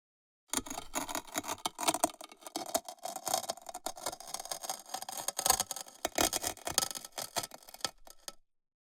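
Ceramic stone cracking: a dense run of irregular sharp cracks and crackles that starts about half a second in and stops abruptly near the end.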